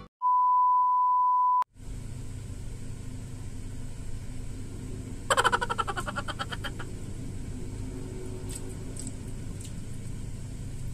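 A steady, high pure beep tone lasting about a second and a half, then a low steady room hum. About five seconds in comes a brief rattle of rapid clicks, with a few faint ticks later on.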